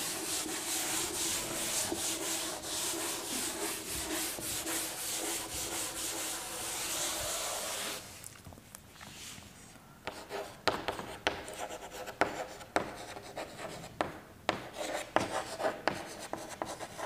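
Chalkboard eraser rubbing back and forth over a blackboard, a steady scrubbing that stops about eight seconds in. After a short pause, chalk taps and scratches on the board in a string of sharp clicks as words are written.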